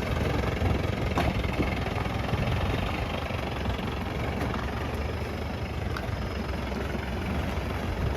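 Jeep engine running steadily at low revs, a deep even rumble.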